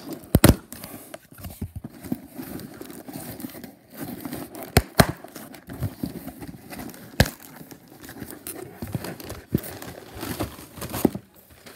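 Packaging crinkling and tearing as a cardboard shipping box is opened by hand, with a few sharp snaps: one about half a second in, two close together near the middle, and another a couple of seconds later.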